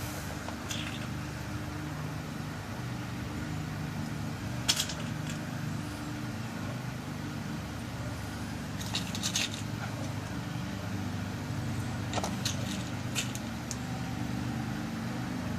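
Scattered light clicks of small lock pins being dropped into a lock cylinder's plug as it is loaded with new pins for rekeying, a few single clicks and a short cluster, over a steady low hum.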